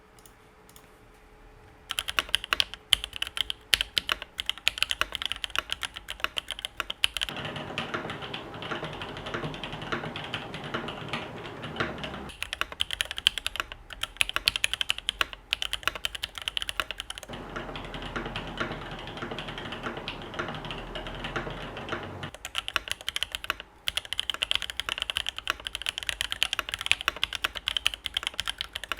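Typing on a KMG TKL mechanical keyboard with an aluminium sandwich plate, SP Star Polaris Grey switches and Linworks keycaps: rapid, continuous keystrokes starting about two seconds in, with a clacky sound and some spring crunch from the switches.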